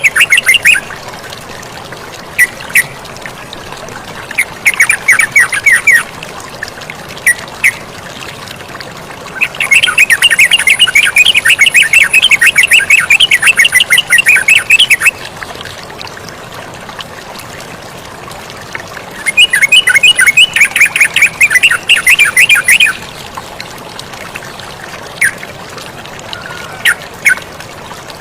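Yellow-vented bulbul (terucukan) singing in three long bouts of rapid, bubbly notes, with scattered single calls between them, over the steady rush of flowing water.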